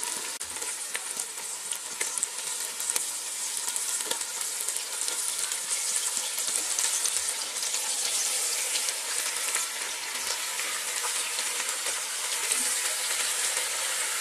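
Raw chicken pieces sizzling in hot oil with browned onion, ginger and garlic as they are laid into the pot: a steady hiss with small crackles, swelling a little as more pieces go in.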